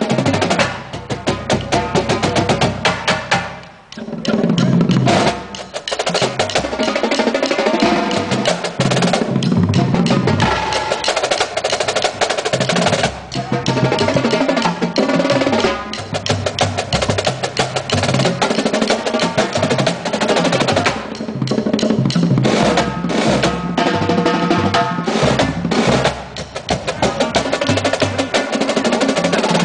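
Drumline playing Pearl marching snare drums: fast, dense stick strokes and rolls, with a brief drop in the playing about four seconds in.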